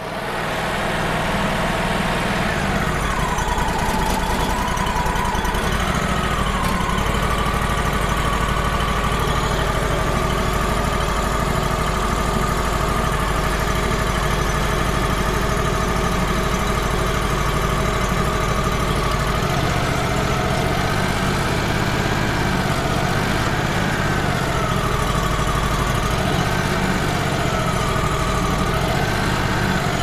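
Wood-Mizer LT35 Hydraulic sawmill's engine running steadily while its hydraulic loader lifts a log onto the mill bed. A whining tone drops in pitch about two seconds in, then wavers up and down in the second half as the hydraulic controls are worked.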